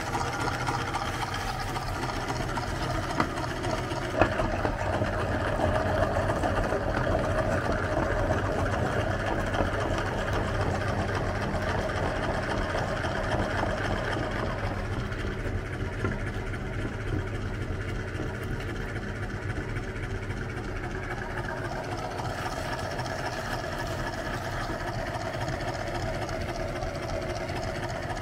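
Metal meat grinder running steadily with its large wheel spinning, a constant mechanical hum as it grinds ice cream wafer sandwiches to a soft paste. A sharp click about four seconds in.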